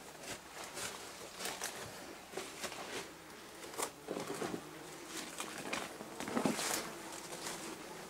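Rustling and crackling of bramble stems and leaves pushed aside, with footsteps through the undergrowth; irregular, louder about halfway through and again near the end.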